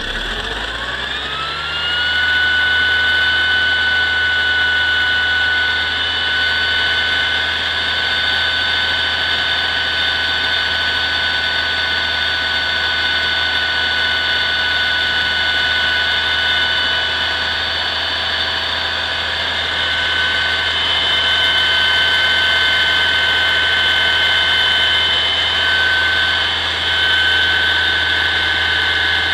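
Coach engine speeding up from idle in the first second or two and then holding a steady higher speed. A high-pitched whine from its belt drive rises with the engine and then stays steady.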